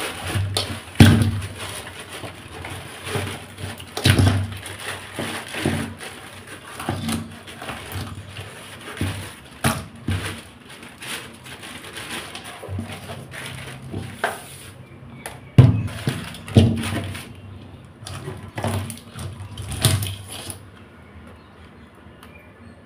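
Raw crabs being handled in a metal pot in a stainless steel sink: irregular knocks and clatters of shells against the pot, with rustling between them, dying down near the end.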